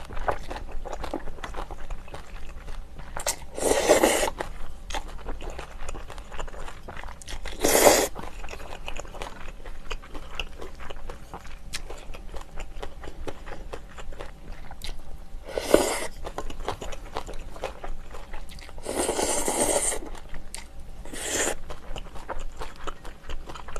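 Rice noodles being slurped up from broth, close to the microphone: five slurps, the longest about a second long, with chewing and small clicks in between.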